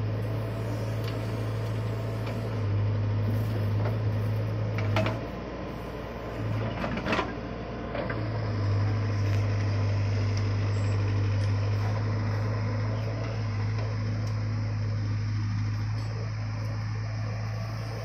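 Case 770EX backhoe loader's diesel engine running steadily under load as the backhoe digs and swings soil into a tipper truck. The hum drops for a few seconds in the middle, where two sharp knocks are heard.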